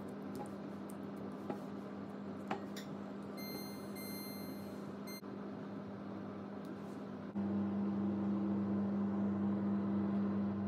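A low hum with a few light taps while blanched cherry tomatoes are peeled over glass bowls, and a steady electronic tone for about two seconds midway. About seven seconds in, a louder steady hum starts: an oven running, with a dish of tomatoes roasting inside.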